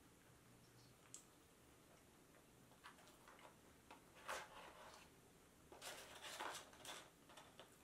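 Faint rustling and crinkling of a paper fry box being handled, in short bursts about four seconds in and again around six seconds, with a few soft clicks before them.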